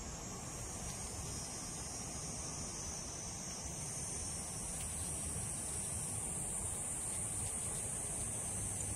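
Insects droning in a steady high-pitched chorus, growing a little louder about halfway through, over a low background rumble.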